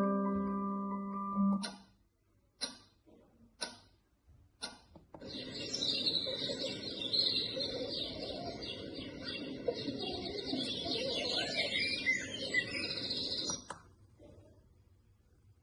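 INSSISAIN moon lamp alarm clock's sound machine playing through its small speaker: a marimba-like chime melody ends, four clicks come about a second apart, then a birdsong nature-sound track plays for about eight seconds and cuts off suddenly.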